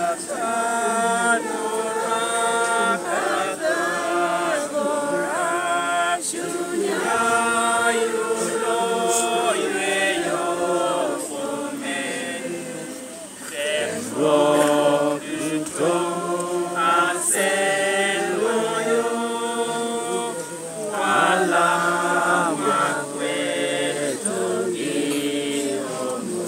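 A group of voices singing a hymn together in slow, held notes.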